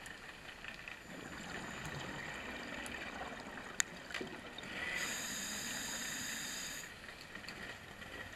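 Scuba diver breathing through a regulator underwater: a bubbly exhale stream, then a hissing inhale from about five seconds in that lasts about two seconds. A sharp click comes just before four seconds.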